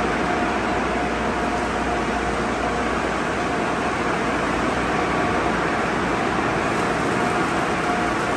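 Sonny's tunnel car wash at work: rotating cloth wrap and rocker brushes scrubbing a car amid water spray, a loud steady rush with a faint steady whine running under it.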